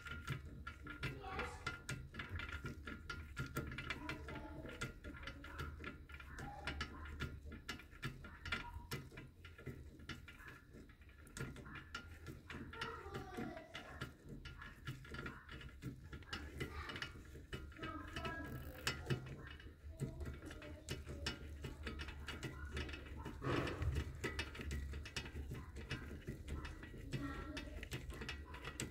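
Faint, rapid clicking and ticking of metal parts as a bit turns the electric parking-brake spindle of a Renault Espace 5 rear brake caliper by hand, winding the piston back.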